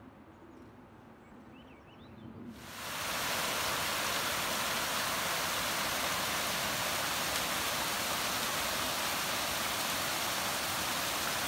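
Steady, loud rushing of water, an even hiss without any pitch that starts abruptly about two and a half seconds in after a quiet stretch.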